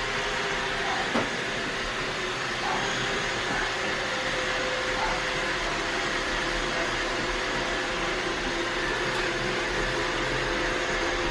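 Vacuum cleaner running steadily, a constant whooshing motor noise with a faint steady hum, and a single light click about a second in.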